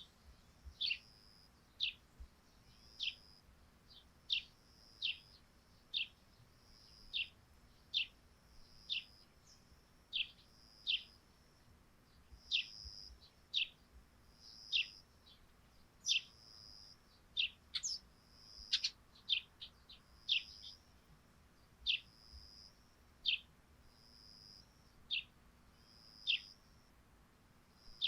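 Eurasian tree sparrows chirping: short down-slurred chirps repeated about once a second, with a quicker run of sharper notes a little past the middle.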